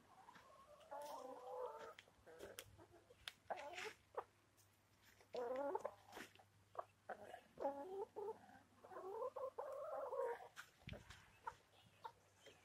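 Hens clucking softly in short, broken calls, with scattered faint clicks.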